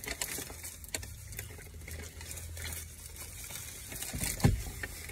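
Paper takeout bag rustling and a food wrapper crinkling as food is taken out: scattered light crackles over a low steady hum, with a soft thump about four and a half seconds in.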